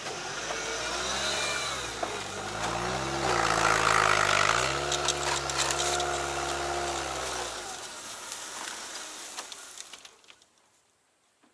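All-terrain vehicle's engine pulling in low range over a steep snowy mound. Its note dips under load about three seconds in, then recovers and runs steady. It fades away around eight seconds in.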